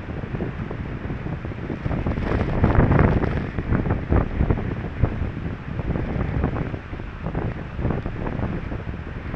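Strong storm wind gusting across the microphone with heavy rain, in uneven buffets that swell about two to three seconds in.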